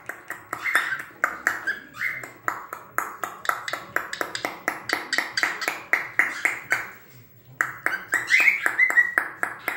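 Cockatiel chattering in a fast, even run of short chirps, about six a second, with a brief break about seven seconds in.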